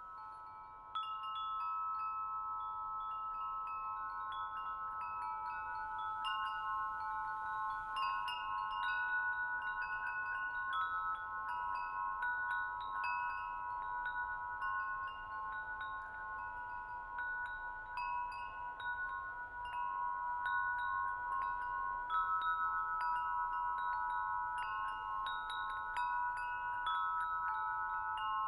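Chimes ringing: several long held tones overlap, with short higher plinks scattered over them. The sound swells about a second in.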